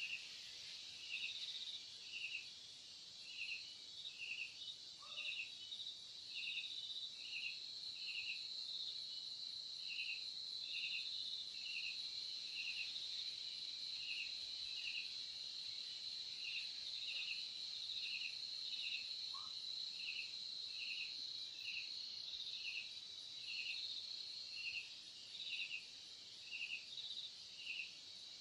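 Crickets chirping: a steady high trill with another cricket's short chirps repeating about one and a half times a second. Two faint brief lower calls stand out once in the first part and once past the middle.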